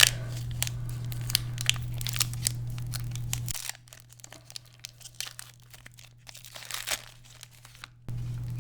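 Foil booster-pack wrapper crinkling and tearing as a pack of trading cards is opened, dense crackling for the first three seconds or so. It then turns to quieter, sparse rustles with one louder crinkle near the end.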